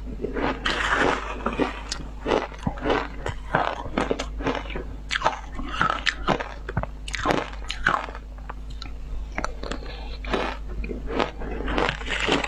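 Ice being bitten and chewed, a rapid, irregular run of crunches and crackles close to the microphone, over a steady low hum.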